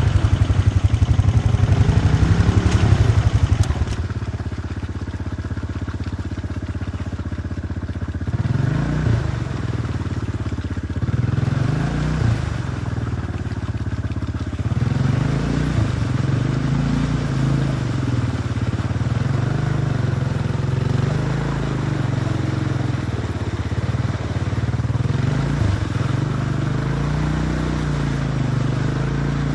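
ATV engine working through deep mud. It runs hard and loud for the first few seconds, then revs up and down over and over, about every two seconds, as the throttle is worked.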